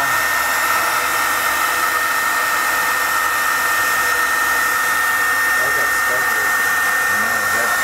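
Handheld heat gun blowing steadily: an even rush of air with a constant high whine, blown across wet countertop epoxy to move and flow the colours.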